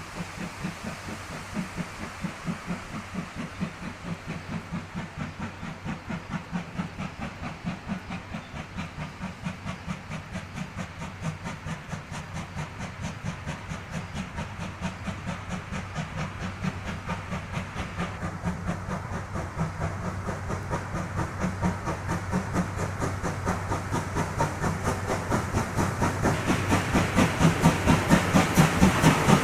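Steam locomotive C11 207, a 2-6-4 tank engine, working a train with a steady rhythmic beat of exhaust chuffs and steam hiss. It grows steadily louder as it approaches.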